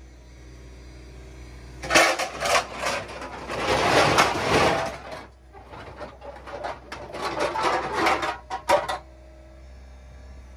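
Scrap metal fittings clattering and clanking in a steel dumpster as an excavator's demo magnet presses into the pile and pulls pieces up onto itself: a dense rattle starting about two seconds in, easing briefly midway and stopping near the end. The excavator's steady low drone runs underneath.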